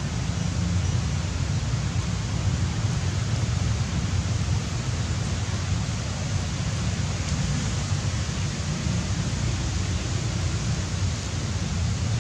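Steady rushing noise with a low rumble and hiss, typical of wind buffeting the microphone outdoors.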